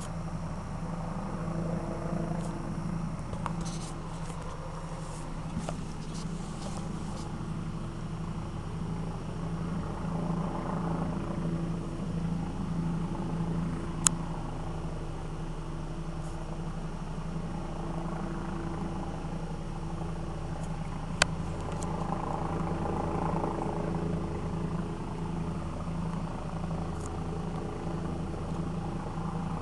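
A helicopter's steady engine-and-rotor drone overhead, with a low hum and a fluttering pulse, slowly swelling and easing. Two sharp clicks cut through it, about halfway through and again some seven seconds later.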